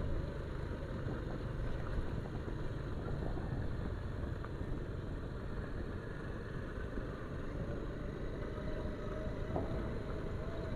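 A Bajaj Pulsar 220F's single-cylinder engine running steadily at low road speed, with wind and tyre noise from riding over a broken road.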